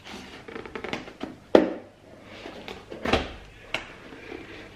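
Gloved hands handling and tapping a cardboard box, with scattered light knocks and rubbing and a sharp thump about one and a half seconds in, another about three seconds in.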